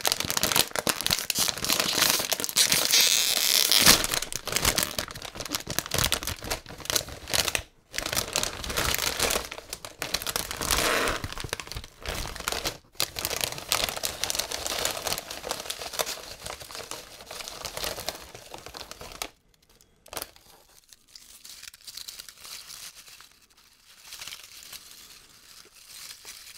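Foil potato-chip bag crinkling and being torn open, loud and dense with two brief pauses; from about two-thirds of the way through only faint, scattered rustling remains.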